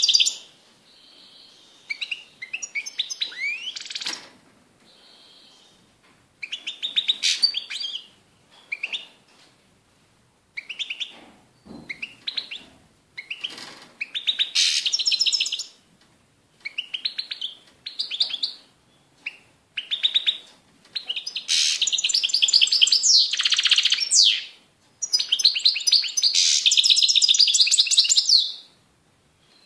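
European goldfinch singing: rapid twittering trills in short phrases separated by brief pauses, running into longer unbroken phrases near the end.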